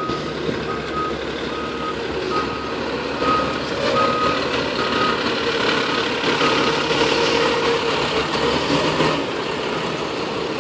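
Seagrave fire engine backing up: its reversing alarm beeps steadily, about five beeps every four seconds, over the running diesel engine. The beeping stops about six and a half seconds in, and the engine noise grows louder in the middle and eases off near the end.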